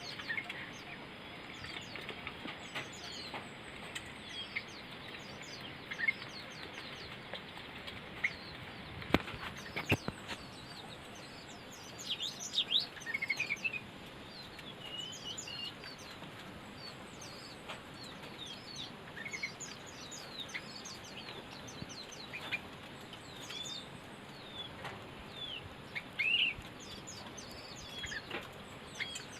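Small birds chirping: many short, high chirps scattered throughout, busiest about twelve seconds in and again near the end, with a couple of sharp knocks about nine and ten seconds in.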